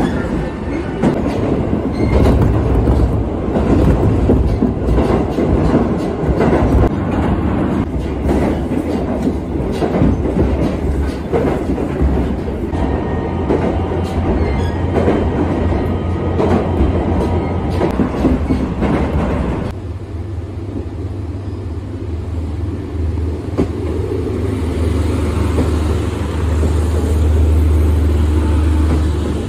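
Train running noise heard from inside a diesel railcar: wheels rolling on the rails with a clickety-clack of rail joints. About two-thirds of the way in it cuts to a quieter, steady low hum of diesel engines idling with the train standing at a station.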